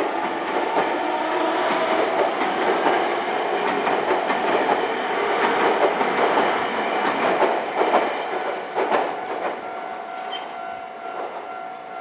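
A train passing over a level crossing, its wheels clacking over the rail joints. It fades away over the last few seconds, when a steady ringing tone comes in.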